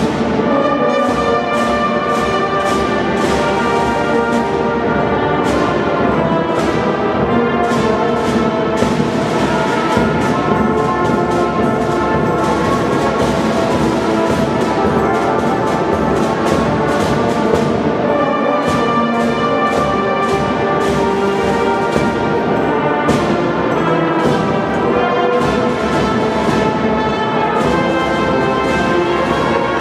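Youth marching band playing: brass instruments carry the melody over a steady beat from snare and bass drums.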